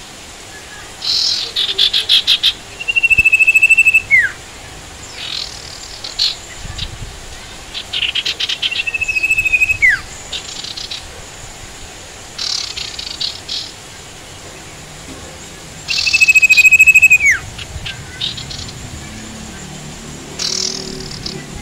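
Sirtu songbird singing: bursts of fast chattering notes, three of them running into a long level whistle that drops sharply at the end. A steady hiss of rain sounds underneath.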